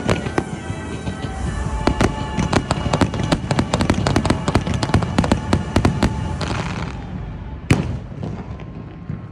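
Fireworks display going off in a rapid barrage of bangs and crackling over show music, thinning out after about six seconds, with one last loud bang near the end.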